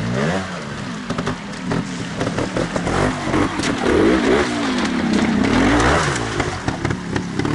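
Trials motorcycle engine revving up and down in repeated bursts as the rider picks a way up a rocky streambed. The revs are highest around the middle.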